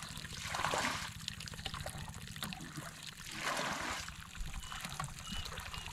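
Water trickling and pouring, with two brief louder surges, about half a second and three and a half seconds in, over a low steady rumble.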